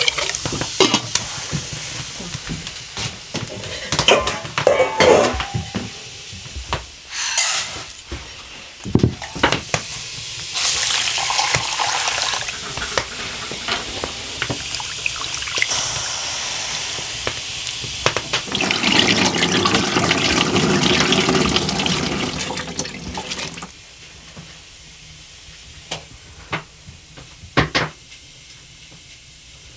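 Water running and splashing during hand washing or filling in a kitchen, with knocks and clatter of dishes and utensils; it stops about three-quarters of the way through, leaving a few sharp clicks.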